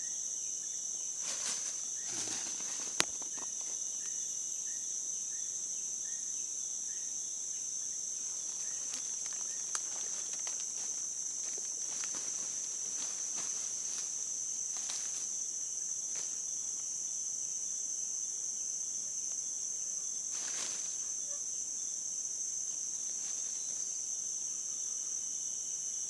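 Steady high-pitched chorus of forest insects, with a few brief rustles of leaves and undergrowth and one sharp click about three seconds in.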